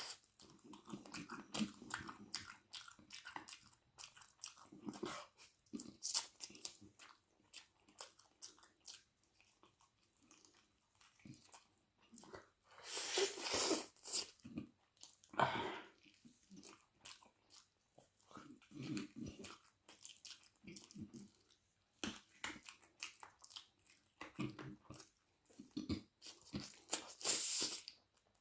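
Close-miked eating of a chicken wing curry and rice meal: wet chewing and smacking with crunchy bites, the loudest bursts about halfway through and near the end.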